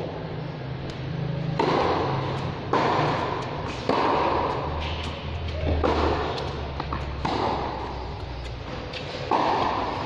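Tennis balls being struck with racquets: about six sharp hits at irregular intervals of one to two seconds, each echoing briefly under the covered court's roof.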